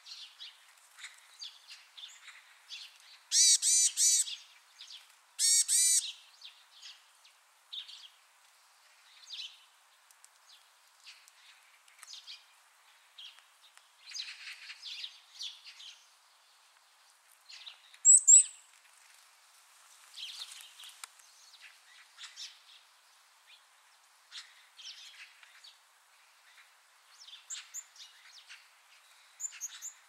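Small songbird calling from the treetops. There are two loud pitched calls, about 3.5 and 5.5 seconds in, and a sharp high chirp about 18 seconds in, with many faint short chirps scattered between them.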